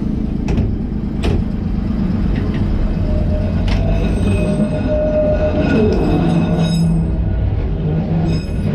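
Vintage Liverpool bogie tram No.762 running on its rails, heard from the driver's platform: a steady low rumble of motors and wheels with several sharp clicks in the first few seconds. A motor whine holds around the middle, then slides down in pitch.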